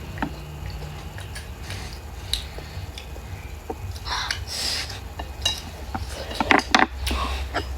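Eating utensils clicking and scraping against a plate or bowl during a meal, in scattered sharp clicks that come thicker near the end.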